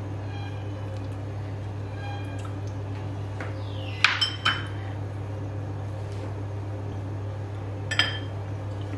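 Light clinks of kitchen dishes or utensils: two ringing clinks about four seconds in and another near the end, with a few faint pings before them, over a steady low hum.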